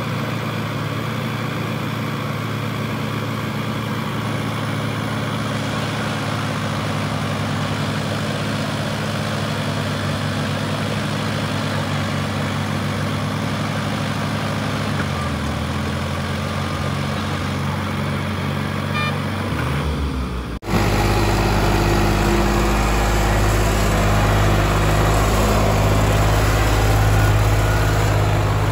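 Sonalika DI 50 RX tractor diesel engines running steadily while one tractor tows another, which is hitched to a loaded trolley, by a chain. About two-thirds of the way through, the sound cuts suddenly to a closer, louder and deeper engine note.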